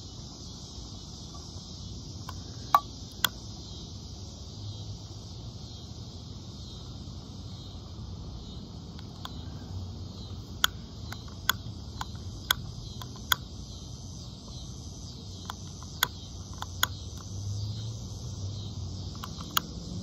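Sharp clicks of a stick lighter's trigger being pulled again and again, singly or in pairs, about nine in all, as the nearly empty lighter fails to light. Insects chirr steadily in the background.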